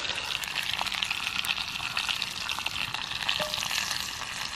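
Pork tomahawk chop frying in a cast iron skillet over an open wood fire, its fat rendering with a steady sizzle full of small spitting pops.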